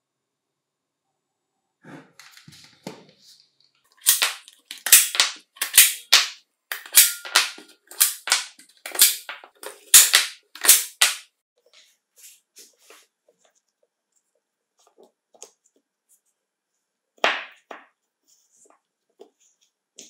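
Battery spot welder fusing nickel strip onto 18650 lithium cells: a run of about ten sharp cracks, roughly one every 0.7 seconds, with a few light handling clicks before them and one more crack near the end.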